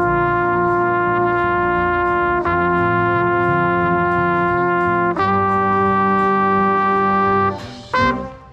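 Marching band brass section playing three long sustained chords, the trumpet close and loudest, changing chord twice and breaking off into a short accented hit near the end.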